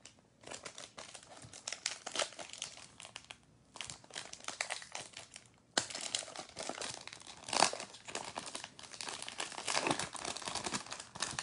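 Foil wrapper of a Topps Chrome trading-card pack being torn open and crinkled by hand: a dense run of crackles with brief pauses midway.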